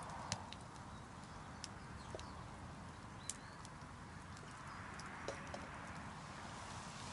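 Small wood fire crackling faintly, with scattered sharp pops.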